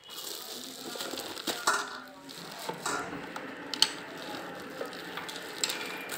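Thin plastic bag crinkling and rustling as it is pulled off a mixer grinder's motor unit, with a couple of sharp ticks.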